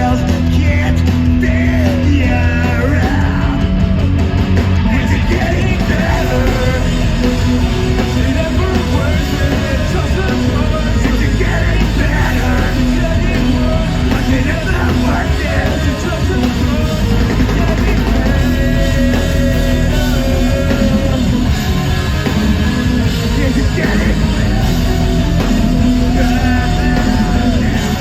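A rock band playing live: electric guitars, bass and drums, with a sung lead vocal over them, at a steady high level throughout.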